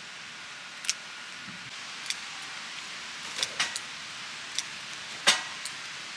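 Steady rush of river water with about half a dozen sharp clicks and knocks scattered through it, the loudest about five seconds in.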